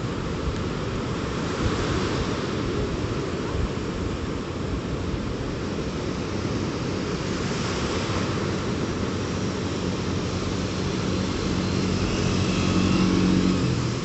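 Wind buffeting the microphone, a gusty low rumble, over a steady rushing wash of surf. In the last few seconds a low engine hum comes in and grows a little louder.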